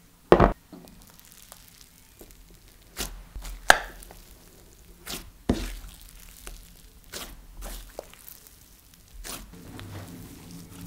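Cloud creme and jelly slime being handled. It comes out of its tub with a loud plop about half a second in, then is pressed and stretched by hand, giving a string of sharp pops and clicks a second or so apart.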